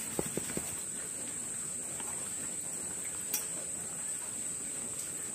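A steady high-pitched insect trill, with a few light clinks about a quarter second in and one more a little after three seconds.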